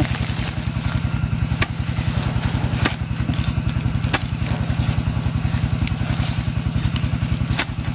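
Small engine running steadily with an even, rapid pulse, and a few sharp clicks scattered through it.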